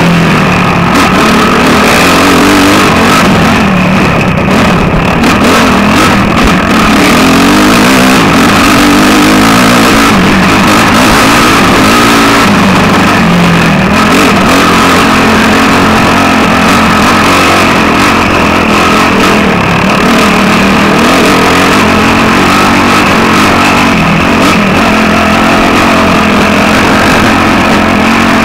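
Dirt bike engine running loud under the rider, its pitch rising and falling with the throttle over rough trail, with a constant rushing noise over it.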